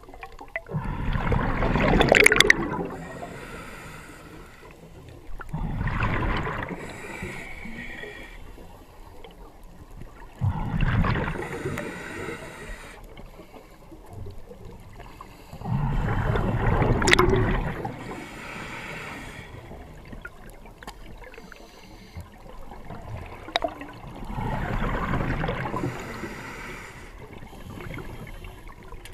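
Underwater gurgle and rush of a diver's breath bubbles, coming in loud bursts about every five seconds with quieter bubbling between them.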